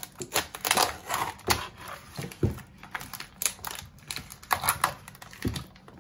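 Clear plastic wrapping crinkling and rustling in irregular crackles as it is pulled off a frozen chicken joint in a foil tray.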